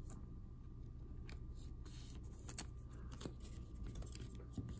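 Faint handling of trading cards: a few light slides and taps as stacks of cards are picked up and gathered on a table, over a low steady hum.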